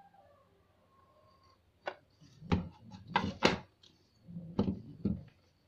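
Hard plastic parts of a barcode scanner stand knocking and clicking as the holder cradle is handled and pushed onto the top of its gooseneck: about six sharp knocks over the last three and a half seconds.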